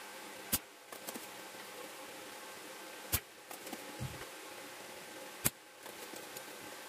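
Spring-loaded desoldering pump (solder sucker) firing three times, each a sharp snap two to three seconds apart, sucking molten solder off a circuit board's joints. Lighter clicks come between the snaps.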